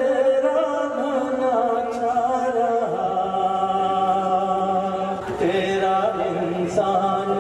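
A man singing solo into a microphone in a chant-like style, holding long notes of a second or more and moving to a new pitch every second or two.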